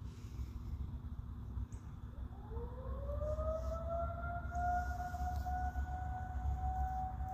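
Federal Signal 2001-130 outdoor warning siren winding up about two seconds in: its tone rises in pitch, then levels off and holds steady. It is sounding for the county's routine scheduled siren test.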